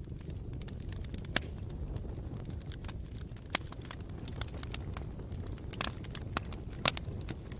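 Campfire burning: scattered sharp pops and snaps over a steady low rumble, with the loudest snaps near the end.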